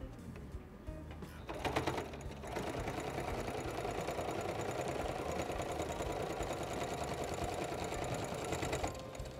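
Singer Patchwork 7285 electronic sewing machine stitching a seam through layered patchwork fabric. A brief run of stitches comes about a second and a half in, then a short pause, then a steady run of stitching for about six seconds that stops shortly before the end.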